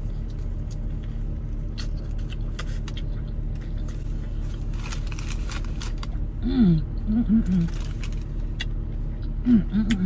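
Chewing a big mouthful of burger, with many small wet mouth clicks, over the steady low hum of the idling car. Short hummed "mm" sounds of enjoyment come in the middle and again near the end.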